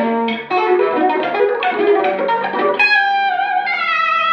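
Electric guitar played through a Verve Sound Steamroller overdrive set to light drive, with the Rise's clean booster engaged, giving a lightly overdriven lead tone. It plays a fast run of single notes, then about three seconds in a long held note with vibrato.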